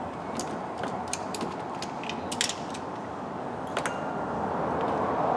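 Scattered, irregular metallic clicks and clinks of hand tools being handled, over a steady background hiss.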